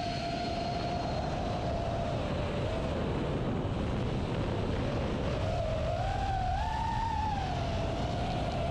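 FPV quadcopter's motors and propellers whining over a rush of wind, the pitch rising and falling with the throttle: it dips about three seconds in, climbs higher around six to seven seconds, then settles back down.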